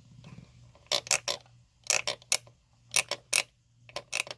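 Tiny wooden frog croaker, about two inches long, scraped with its stick along the ridged back. It gives four short rattling croaks, about one a second.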